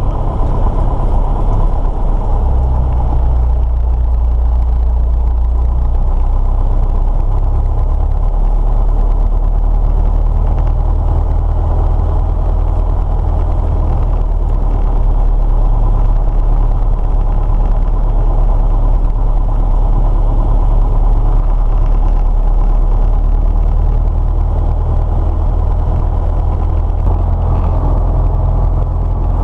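Single-engine propeller engine of a Cessna Skyhawk 172 with a 180-horsepower conversion, running at low taxi power as a steady low drone heard from inside the cockpit. Its pitch shifts slightly a few seconds in and again near the end as power is changed.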